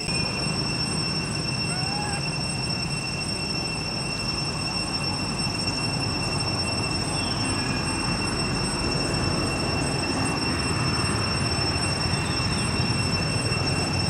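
Steady background noise: a low rumble and hiss that holds level throughout, with a constant high-pitched whine on top.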